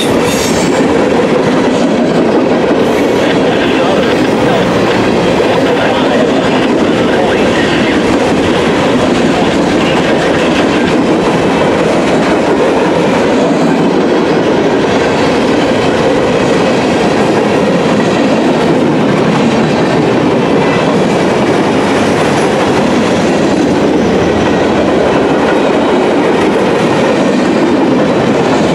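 A long freight train's cars (refrigerator cars and boxcars) rolling past at close range: a loud, steady rumble and clatter of steel wheels on rail.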